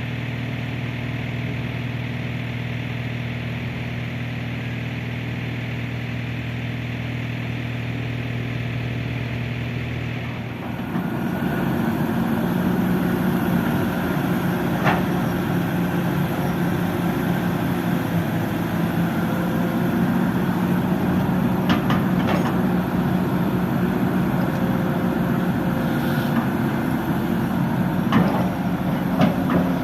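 Kobelco SK200 hydraulic excavator's diesel engine running steadily, then about ten seconds in it revs up to a higher, louder note as it works under hydraulic load, with a few sharp knocks in the second half.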